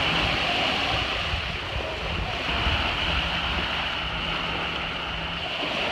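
Small waves breaking and washing up on a sandy beach, a steady surf wash. Wind rumbles on the microphone underneath.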